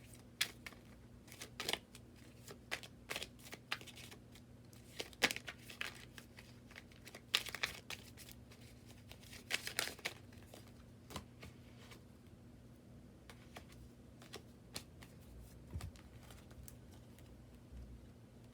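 Tarot cards being handled: scattered soft clicks and rustles of cards slid, flipped and laid down, busier in the first ten seconds and sparser after, over a steady low electrical hum.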